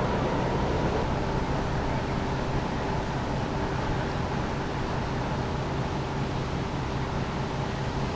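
A passing ship's engine droning steadily with a low hum and a few steady higher tones, over wind noise, easing off slightly.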